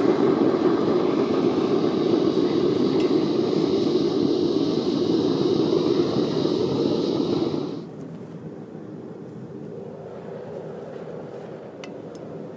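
Propane burner roaring into a homemade bucket foundry furnace, heating a crucible to melt aluminum. About eight seconds in it drops to a quieter, steady roar, with a couple of light clicks near the end.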